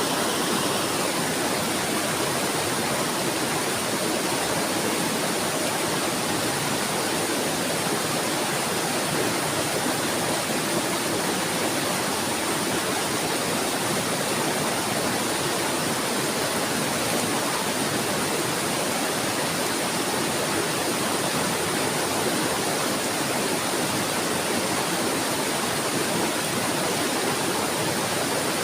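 Steadily running water, an even rushing with no breaks or changes.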